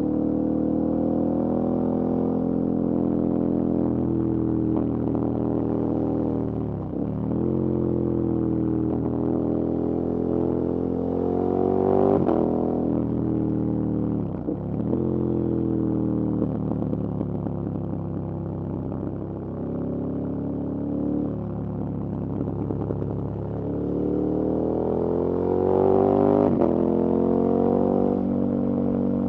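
KTM 1290 Super Adventure S's V-twin engine under way, its pitch climbing as it accelerates and dropping sharply at each of several gear changes.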